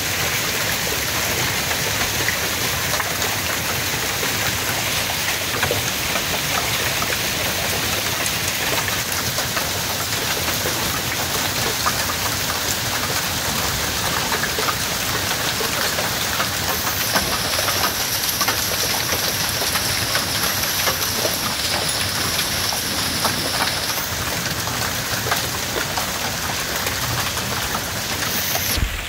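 Heavy rain pouring down in a severe storm, a dense, steady hiss of rain striking the ground, roof and parked cars.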